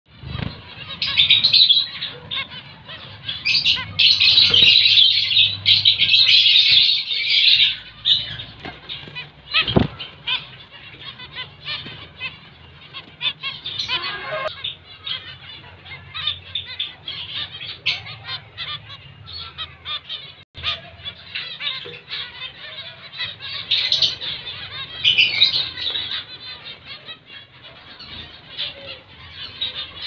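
A caged flock of zebra finches calling, a dense chatter of many short calls, loudest in the first eight seconds and again about twenty-five seconds in.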